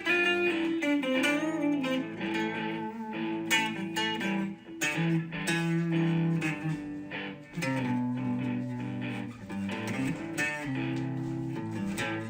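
Background music led by a plucked guitar, a gentle melody with notes changing every second or so.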